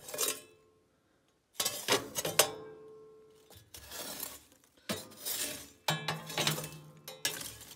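A tool scraping and clanking against the cast-iron firebox and grate of a wood stove, knocking ash down through the grate into the ash pan. It is a run of about half a dozen sharp clinks and scrapes, two of them ringing briefly.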